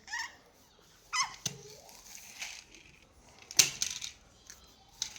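Play with a small toy car: two short high squeaks, then a series of sharp clicks and knocks, the loudest about three and a half seconds in.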